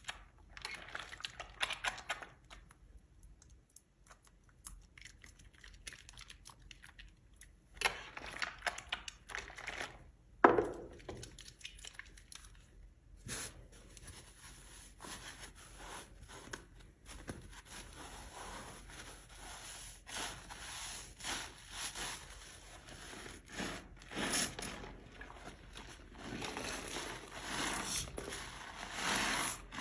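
Soaked, mushy soap being scraped and squished, a run of irregular crackly, tearing scrapes that grow denser and more continuous in the second half, with one sharp click about ten seconds in.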